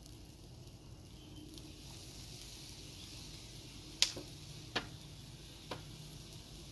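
Fried rice sizzling on a hot Cuisinart 360 flat-top griddle, a steady high hiss, with three sharp clacks of a spatula striking the griddle about four, five and six seconds in, the first the loudest.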